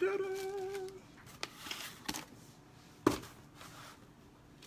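A short note held by a person's voice for about a second, then a few light clicks and knocks as the parts of a ceramic wax warmer are handled. The sharpest knock comes about three seconds in.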